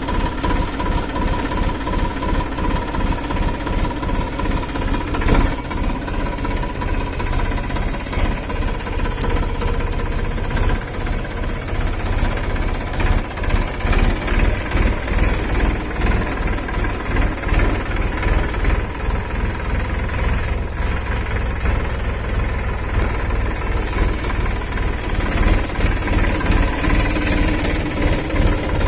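Massey Ferguson 254 Dynasmart tractor's diesel engine running steadily under load while ploughing hard soil, with scattered sharp knocks and rattles in the middle stretch.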